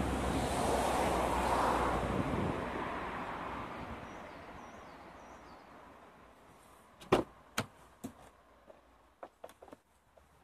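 A rushing whoosh that swells and then fades away over the first few seconds, followed about seven seconds in by a few sharp knocks and clicks, the first the loudest.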